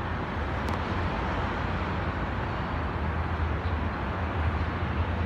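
Steady low rumble of distant GEK-class diesel-electric locomotives hauling a ballast train on approach, heard over general outdoor urban noise.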